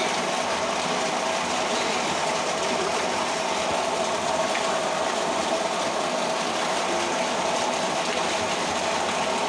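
A strong stream of pumped water gushes steadily from an outlet pipe into a concrete tank, with a steady machine hum from the pump running and the water churned by bathers.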